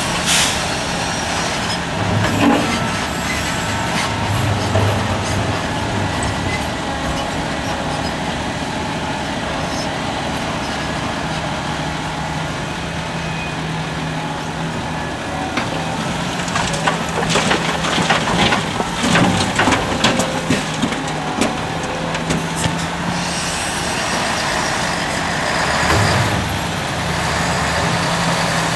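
Heavy diesel engine of a Liebherr R974B hydraulic excavator running steadily under load as it digs and swings. Past the middle, a bucketful of earth and rocks clatters into the steel body of a dump truck, then the engine surges briefly near the end.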